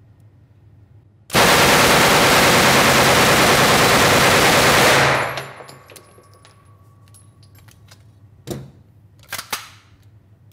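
Beretta PM12 9mm submachine gun firing one unbroken full-auto burst of about four seconds at a steady rate, echoing in an indoor shooting range. A few seconds later come three short clacks.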